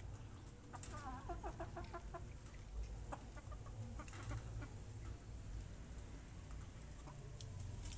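Young Bangkok-cross chickens clucking. A quick run of clucking calls comes about a second in, followed by a few scattered short clucks and some light clicks over a low rumble.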